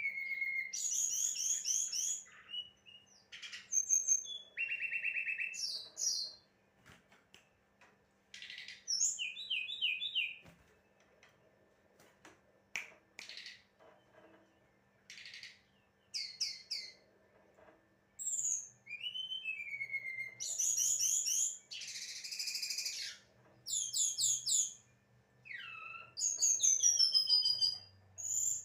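A songbird singing a varied song of whistles, chirps and fast trilled phrases, in bursts with short pauses between them.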